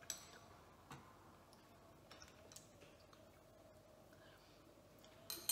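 Near silence with a few faint clicks of metal drinking straws against glass, and a sharper click near the end.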